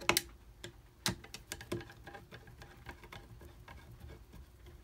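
Screwdriver tightening the buttstock screw on a Henry .22 lever-action rifle: irregular small metal clicks and ticks as the blade turns in the screw head, with a sharper click just after the start and another about a second in.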